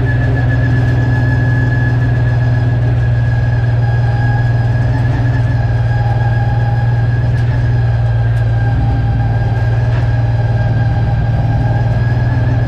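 V8 engine of a Late Model stock car heard from inside the cockpit, running at a steady, unchanging pitch with a loud low drone.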